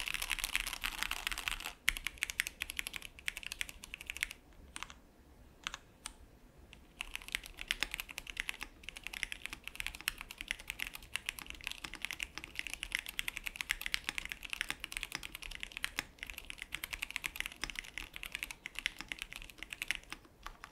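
Fast typing on a Paradox Gaming Ghost OPT64 keyboard with Gateron optical linear switches: a dense run of keystroke clacks, thinning to a few scattered keys a few seconds in before picking up again. The switches sound scratchy and noisy.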